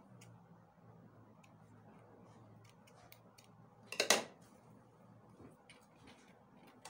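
Quiet handling of cloth and small tools at a sewing machine: scattered light ticks and clicks, with one short louder burst about four seconds in, over a low steady hum.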